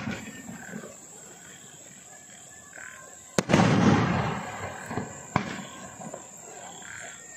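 Pandyan brand 30-shot aerial fireworks cake firing. A shell bursts about three and a half seconds in with a sharp crack and a loud boom that rings away, and a second sharp crack follows about two seconds later.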